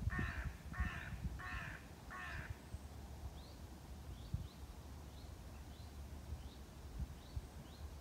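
A crow cawing four times in quick succession, about one caw every 0.7 seconds, in the first two and a half seconds. Short, thin chirps of a small bird come now and then throughout, over a low rumble of breeze on the microphone.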